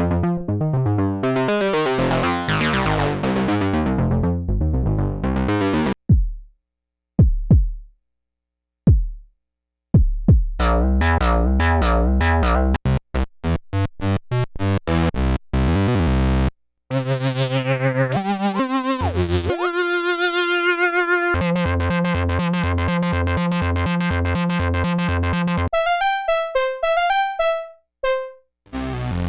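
Moog Subsequent 37 analog synthesizer being played: bright, filter-swept notes, then a few short bass plucks with gaps between them, then a fast repeating sequenced pattern with held tones over it.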